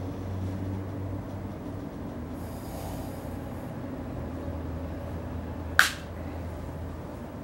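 A sword blade chopping through an apple lying on a person's chest: one sharp, sudden hit about six seconds in, over a steady low background hum.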